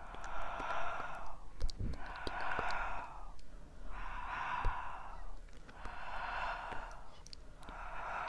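A person breathing slowly and audibly close to the microphone, soft hushing breaths about one every two seconds, with a few faint clicks between them.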